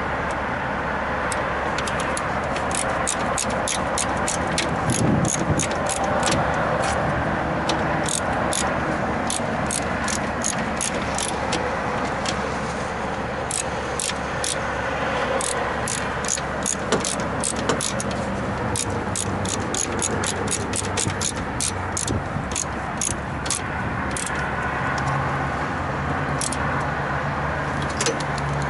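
Steady running noise and low hum of a refrigeration condensing unit, with many small, sharp metallic clicks from hand tools and wiring being worked on it.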